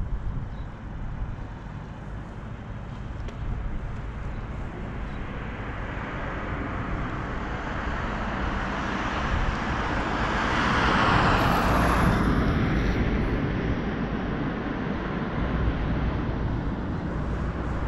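Street traffic noise with a steady low rumble. A vehicle passes close, its tyre and engine noise swelling to a peak about eleven seconds in and then fading.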